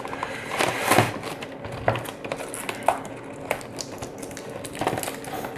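Trading-card boxes and their packaging being handled and opened by hand: scattered light taps and clicks over soft rustling.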